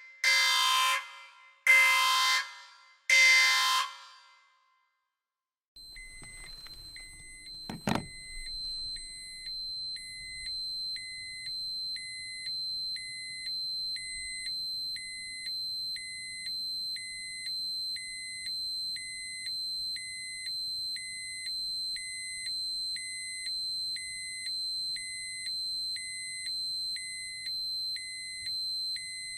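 Three short, loud blasts of a buzzing horn or buzzer. After a short silence, an electronic alarm starts: a steady high-pitched tone with a beep about once a second, like a smoke or fire alarm, and a single knock a couple of seconds after it starts.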